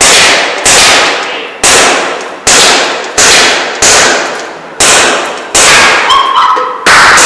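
ASG CZ P-09 gas blowback airsoft pistol firing about ten shots in a steady series, roughly one every three-quarters of a second. Each sharp crack is followed by a long echo in a bare, hard-walled room.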